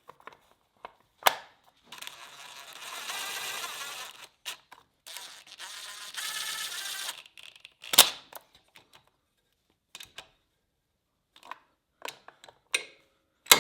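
Hand tools at work on a dirt bike's bolts: two stretches of ratchet-wrench clicking, a couple of seconds each, and a few sharp metallic clanks, the loudest about eight seconds in.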